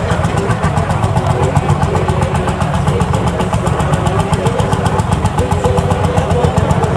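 Vintage tractor engine running steadily at idle, with an even, rapid beat.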